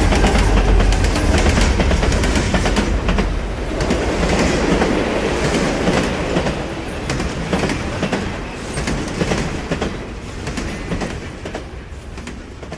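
A train running on rails, its wheels clattering over the track, fading away over the last few seconds.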